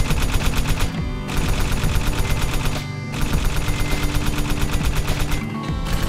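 Automatic-rifle gunfire sound effect: rapid shots at about eight a second, in long bursts with brief pauses between them.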